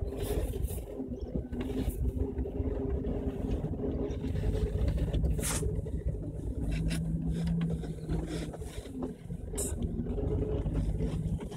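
Jeep Wrangler's engine running at low, steady revs as it crawls a rough dirt trail, heard from inside the vehicle. Scattered knocks and rattles from the bouncing vehicle cut through the engine sound.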